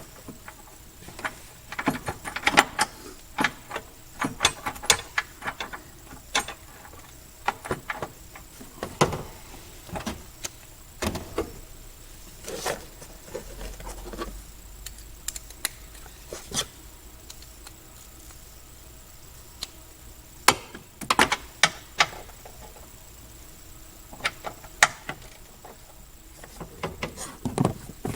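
Irregular clicks, clinks and knocks of metal hand tools: a socket ratchet on a long extension working 10 mm bolts on an intake bracket, in short bunches with pauses between.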